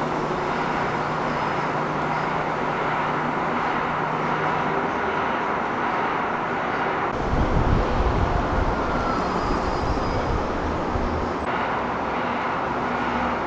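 Steady vehicle and street noise with a faint even hum. After a cut about seven seconds in, a deeper engine rumble swells for a couple of seconds and then eases back.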